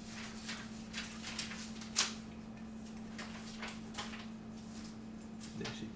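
Light clicks and taps of a digital caliper's steel jaws against a cast-metal part as its bore is measured, the sharpest tap about two seconds in. A steady low hum runs underneath.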